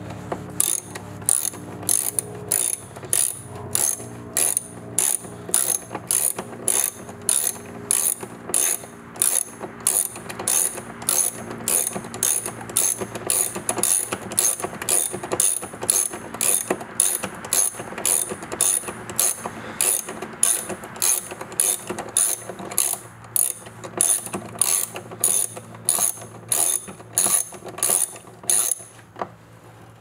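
Socket-wrench ratchet clicking as a Torx bit backs out a taillight bolt, in a steady rhythm of about two clicks a second that stops near the end.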